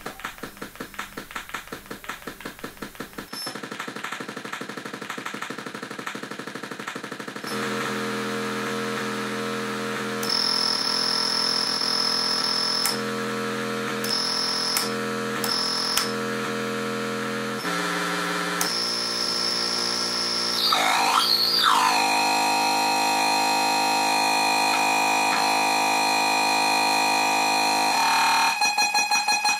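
FusoElektronique NDR-113 noise machine, built on a Texas Instruments SN76477 sound-generator chip, played by hand: buzzy electronic tones that jump abruptly from pitch to pitch every second or two. A fast pulsing throb runs through the opening seconds and returns near the end, and about two-thirds through the pitch warbles up and down briefly before settling on a steady drone.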